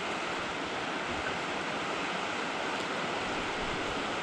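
Flowing river water rushing steadily: an even wash of water noise that holds at one level throughout.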